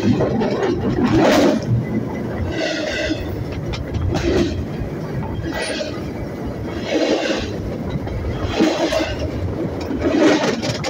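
Train rolling past at close range: a steady rumble with a rhythmic clatter about every one and a half seconds as its wheels pass.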